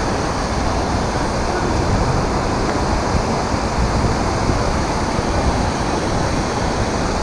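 Steady rushing noise of wind buffeting the action camera's microphone, gusting unevenly in the low end.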